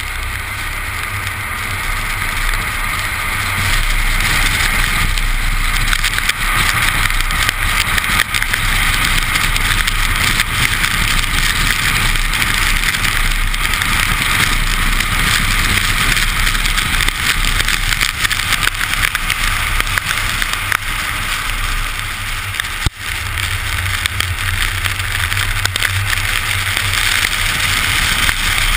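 Car driven at speed on a wet race track, heard from a camera mounted low on its side beside a wheel: a steady hiss of tyres on wet asphalt and wind, over a low engine drone. The noise builds over the first few seconds as the car gathers speed, and dips sharply for a moment late on.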